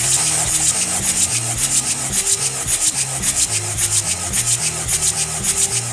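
Chevrolet Captiva Z22D1 2.2-litre turbodiesel being cranked over during a compression test, without firing: a steady, rapid rhythmic rasping that starts abruptly and fades near the end, as cylinder two builds to 24 kg/cm² of compression.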